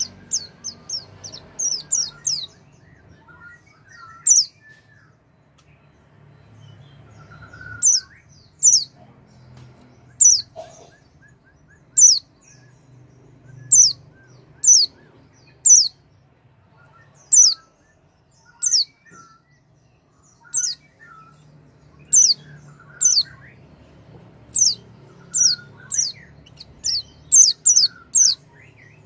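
White-eye (pleci) calling: short, sharp, high chirps that drop in pitch, given singly or in quick runs of two to four, over a faint low hum. It is a lure call meant to set a silent caged pleci singing.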